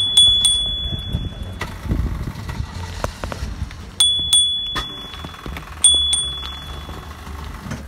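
A bicycle bell rung in quick bursts of two or three rings: at the start, about four seconds in, and again about six seconds in. A steady low rumble runs underneath.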